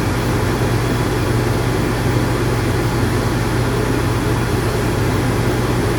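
Electric dog-grooming clippers running steadily, a constant motor hum as the blade is worked lightly over a dog's face.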